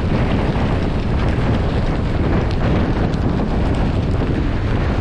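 Loud storm wind buffeting the camera microphone.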